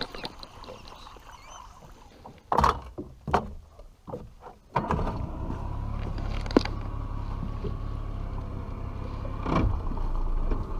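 A couple of knocks, then about five seconds in a boat's motor starts running steadily as the boat gets underway, with water rushing past the hull.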